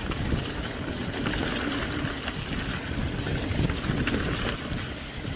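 Wind buffeting the microphone over the low, uneven rumble of a mountain bike rolling over rough ground; it eases near the end.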